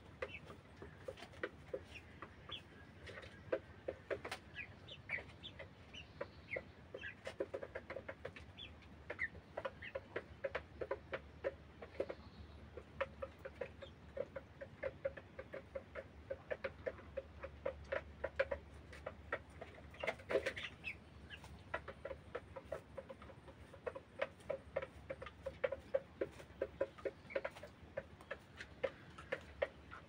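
A flock of white broiler chickens clucking softly and continuously in short repeated calls, with higher short peeps and many small clicks among them.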